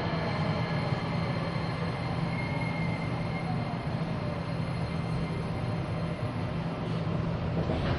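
Nagoya subway 6050 series electric train running: a steady rumble with a motor whine that falls in pitch over the first few seconds.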